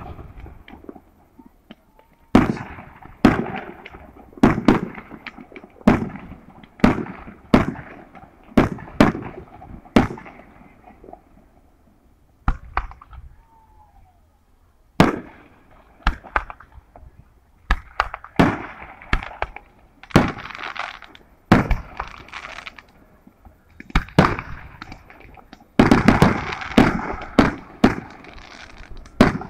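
Aerial fireworks exploding: a long irregular series of sharp bangs, thinning out to a lull about halfway through, then a dense rapid flurry near the end.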